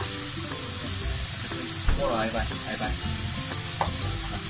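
Minced pork sizzling in a hot frying pan as a dark sauce is poured over it, with one sharp knock about two seconds in.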